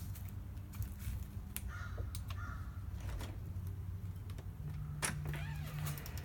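Harsh bird calls, twice about two seconds in, with scattered sharp clicks and a sharp snap about five seconds in.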